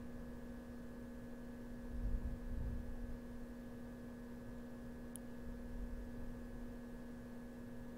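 Steady electrical hum at a low level, with a soft low rumble about two seconds in and a single faint click about five seconds in.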